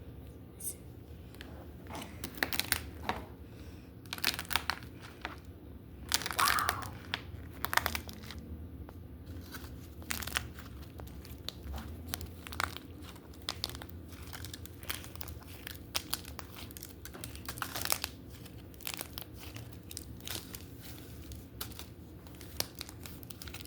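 Slime being worked by hand, giving irregular crackling and crinkling clicks.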